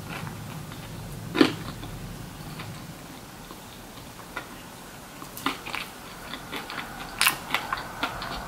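Close-miked eating sounds: chewing with sharp mouth clicks and smacks, one loud click about a second and a half in and a scatter of them in the last few seconds.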